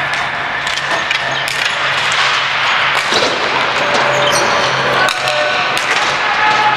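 Ball hockey play in a large hall: a stream of sharp clacks and knocks from sticks, ball and boards over a dense background din, with a steady low hum under it.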